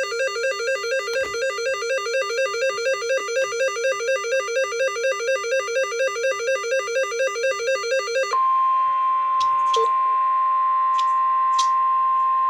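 A fast, repeating electronic keyboard-like note pattern, about four notes a second. About eight seconds in it cuts off and is replaced by a steady single-pitch alert tone: the NOAA Weather Radio warning alarm tone that announces a warning broadcast.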